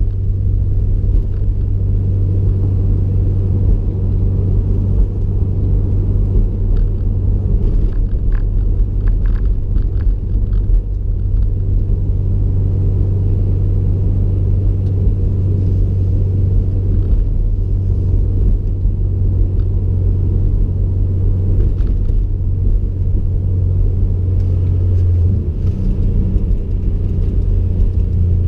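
Cabin sound of a Stage 3 2020 Subaru WRX STI with a turbo-back exhaust: the turbocharged 2.5-litre boxer four makes a steady, deep exhaust rumble while driving. The drone wavers briefly near the end.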